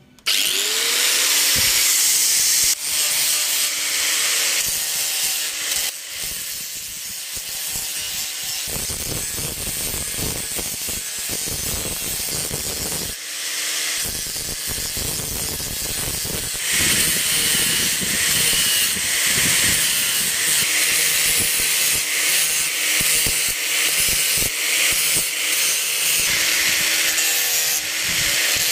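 A small electric motor with an abrasive sanding disc starts up, its whine rising to a steady pitch. It then runs with a continuous grinding hiss as a coconut shell is pressed against the disc and its husk is sanded off. The grinding gets heavier about nine seconds in and breaks off briefly around thirteen seconds.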